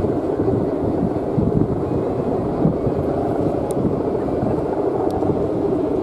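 Steady, loud drone of a Balinese kite's guangan, the bowed hummer strung on the kite, humming in the wind, with wind on the microphone.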